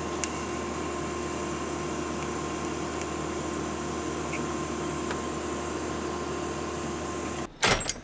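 TIG welder running while a metal pedal bracket is tack-welded: a steady hum with a hiss over it, which stops suddenly about seven and a half seconds in.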